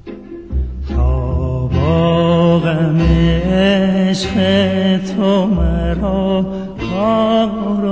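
A male voice sings long held notes in Persian classical style, broken by quick warbling ornaments (tahrir). Low sustained string notes run beneath and come back every few seconds.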